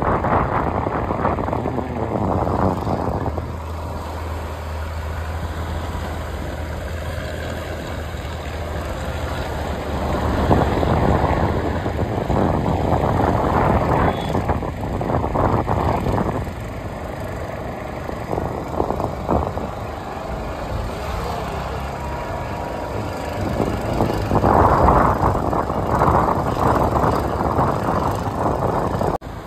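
A fishing boat's engine running with a steady low hum, while a louder rushing noise swells and fades three times.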